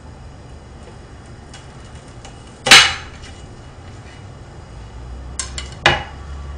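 Kitchen knife cutting an onion on a cutting board: a few sharp knocks of the blade against the board, the loudest a little under three seconds in, and a small cluster of clicks and a knock near the end.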